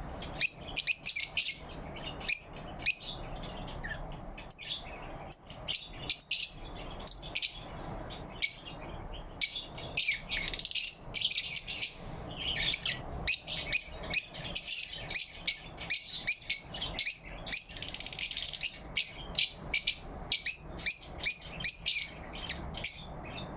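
Lovebirds chirping: a string of short, high chirps in quick irregular runs, thicker in places, over a faint low hum.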